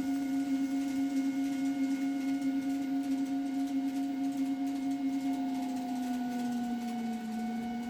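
Simulated electric-locomotive motor whine played by a Kato Soundbox sound card: a steady, humming tone with overtones, tied to the train controller's throttle. The pitch sags slightly about seven seconds in, then rises again.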